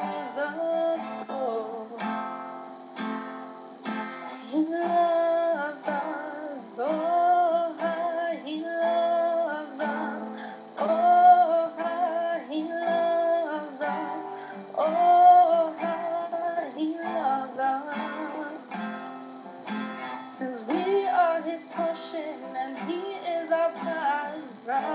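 A woman singing a slow song over a strummed acoustic guitar.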